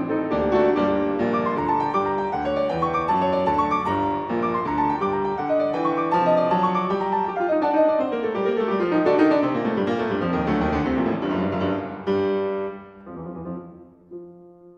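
Background piano music, busy with quick flowing runs, then thinning to a few quieter notes about twelve seconds in.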